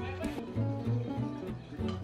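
Background music: plucked guitar notes over a bass line with a steady beat.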